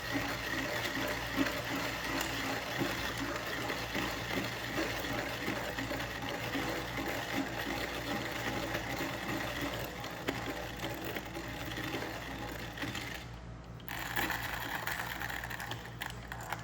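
Fiorenzato Pietro manual coffee grinder being hand-cranked, its burrs crushing coffee beans in a steady crackling grind. The grinding stops briefly about three-quarters of the way through, then resumes.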